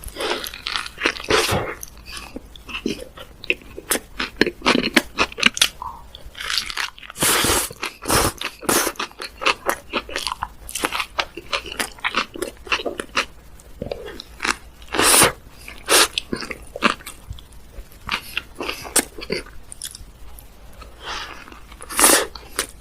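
Close-miked eating of Korean salad bread: repeated bites and wet, crunchy chewing in irregular bursts, with some louder bites scattered through.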